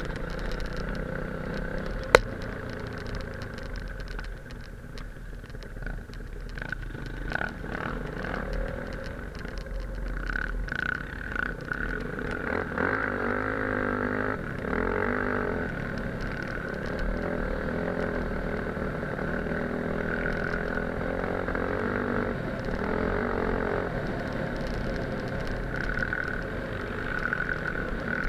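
Enduro motorcycle engine running while riding, its pitch rising and falling with the throttle, with a sharp knock about two seconds in.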